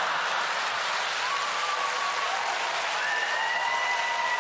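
A theatre audience applauding steadily.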